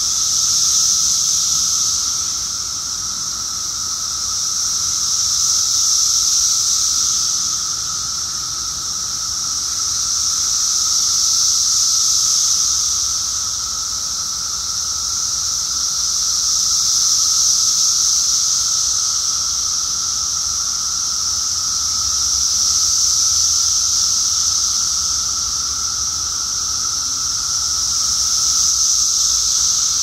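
Dense chorus of Brood X periodical cicadas: a high buzzing that swells and fades about every five to six seconds, layered over a steadier, lower droning call from a second kind of cicada.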